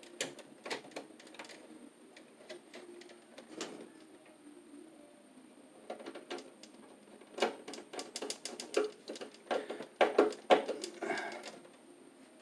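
Clicks, taps and light scrapes of a ground wire and hand tools against a metal breaker panel as the wire is cut and worked into place. Sparse at first, then a quick run of clicks from about seven seconds in, loudest near the ten-second mark.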